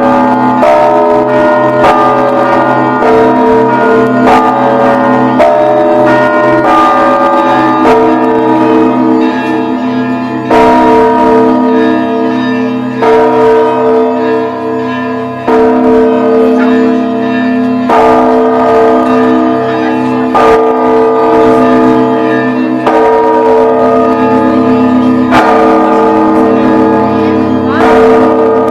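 Church bells being rung, several bells of different pitches sounding together over a steady hum. Smaller bells strike in quick changing patterns, and from about a third of the way in a deep bell comes in about every two and a half seconds.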